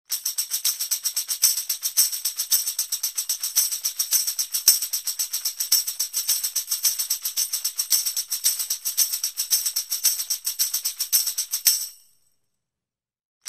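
Tambourine shaken rapidly in a steady, continuous jingle roll of many quick strokes a second, stopping cleanly about twelve seconds in.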